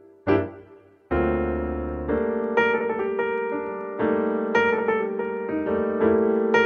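Background piano music: a few separate struck notes, then a fuller passage with a held low note and repeating higher notes from about a second in.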